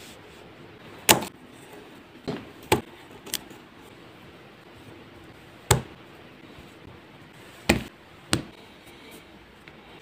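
Seven sharp, irregular taps and knocks as clay slabs are handled and set into a round clay ashtray form on a cutting mat, over a faint steady hiss.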